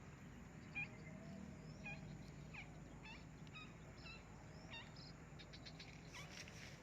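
Faint, scattered bird chirps: short high calls every second or so, with a quicker run of them near the end, over a low background hum.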